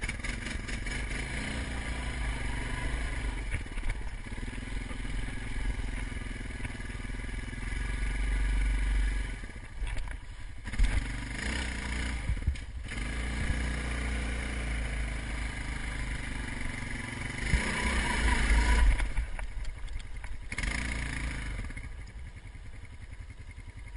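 Utility ATV engine running as the quad is ridden, its note rising and falling with the throttle. It surges louder about eight seconds in and again around eighteen seconds, and eases off briefly near ten and twelve seconds.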